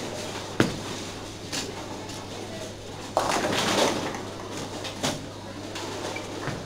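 A bowling ball lands on the lane with a sharp knock just after release, and about three seconds in the pins crash for under a second. Low voices and a steady hum of the hall lie behind.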